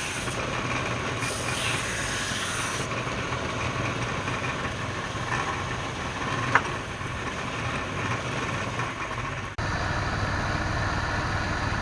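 Wood lathe running steadily, its motor giving a constant hum, with one sharp click about two-thirds of the way in. The sound breaks off abruptly and resumes a little louder near the end.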